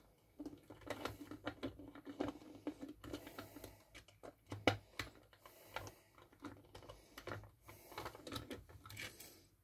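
Screwdriver working a Torx screw out of the soldering station's aluminium enclosure: a run of small, irregular clicks and ticks.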